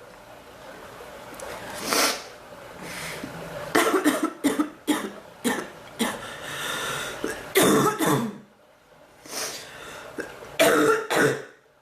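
A woman coughing again and again in short bouts, mixed with throat clearing: a persistent cough that has come back.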